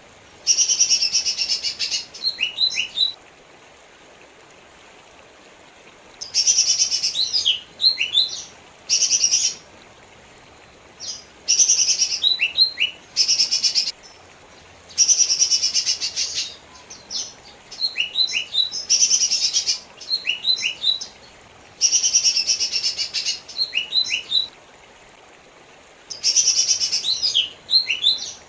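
Cucak ijo mini (a small leafbird) singing: repeated phrases of a fast, buzzy high trill followed by a few quick, sharp downward whistles, with pauses of a second or two between phrases.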